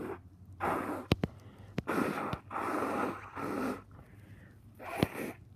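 Repeated short, noisy sniffs through a nose congested with a cold, about five in a row, with a few sharp clicks in between.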